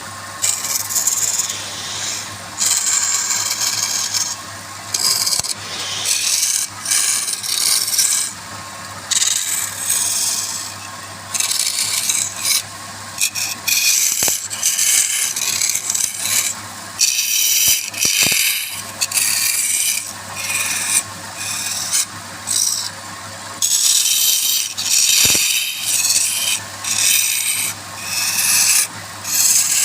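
A turning tool scraping against wood spinning on a lathe, in repeated passes a second or two long with short gaps between them, over the lathe's steady low hum.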